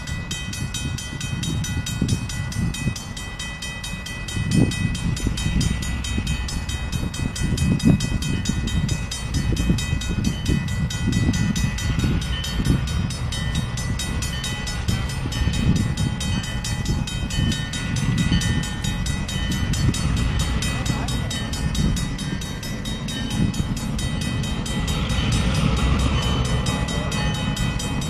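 Low, uneven rumble of CN diesel switching locomotives approaching slowly with their train, the engines heard from a distance, with faint steady high tones above.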